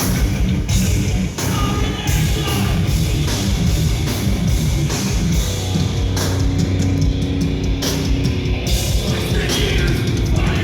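A heavy metal band playing live at full volume: distorted guitars and bass over pounding drums and cymbals, with a quick flurry of drum hits about seven seconds in.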